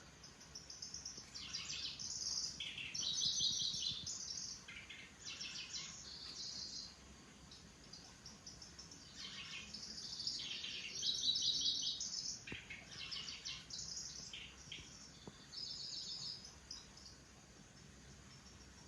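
Kecici belalang (cici lurik), a small warbler, singing: a series of rapid, high, buzzy trilled phrases, each under a second long, separated by short pauses and briefly quieter midway.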